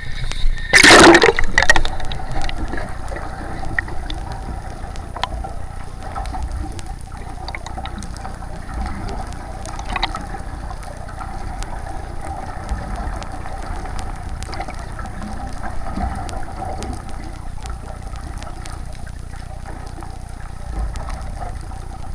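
A splash about a second in as the camera goes under the sea surface, then the muffled, steady rush and gurgle of seawater heard through an underwater camera housing, with a faint steady hum.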